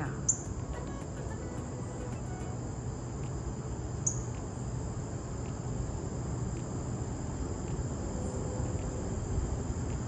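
A steady, high-pitched insect chorus drones throughout. Over it come two sharp chip notes from a northern cardinal, the first right at the start and the second about four seconds later.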